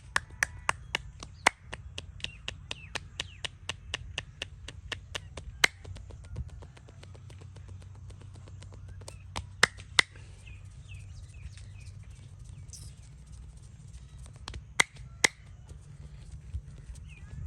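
Percussive massage: a fast even run of sharp hand slaps on the body, about four a second, then after a pause two pairs of single slaps.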